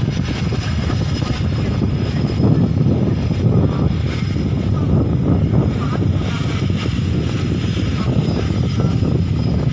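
Aircraft engines running loudly: a dense, steady rumble with a faint high whine over it.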